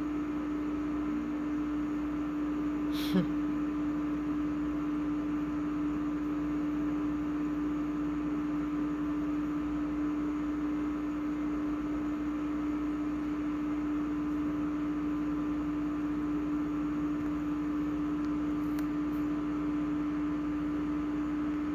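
A steady electrical-sounding hum with a constant hiss underneath, and a single short click about three seconds in.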